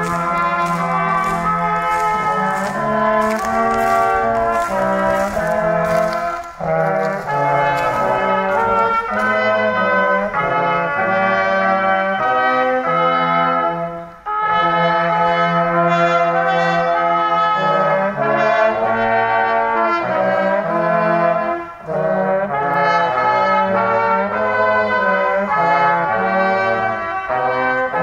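Brass choir of trombones and trumpets playing a tune together in sustained notes, in phrases of about seven seconds with a short breath between each.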